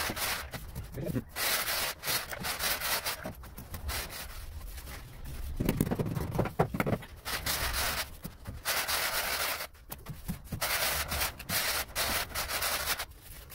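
Trowel and wooden straightedge scraping and rubbing over damp, gritty sand-cement floor screed as it is spread and levelled, in repeated uneven strokes.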